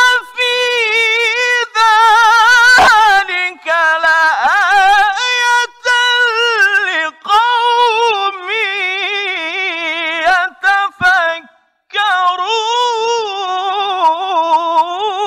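A man's high voice in melodic Quran recitation (tilawah), drawing out long phrases with wavering, melismatic ornaments, broken by short breaths. About three-quarters of the way through there is a longer pause for breath, then one more long phrase that slides down in pitch at the end.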